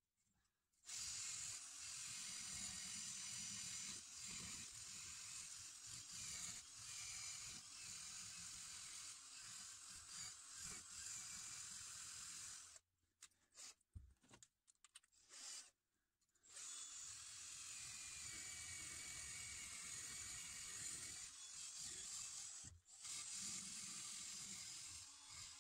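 Power drill fitted with a wire brush scrubbing rust off a steel luggage rack, a steady scratchy whirr that stops for about three seconds midway and again briefly near the end.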